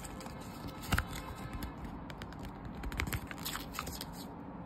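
Crackling, rustling paper and light clicks as a backing sheet of self-adhesive dots is handled against a plastic high chair tray, loudest about a second in and again around three seconds.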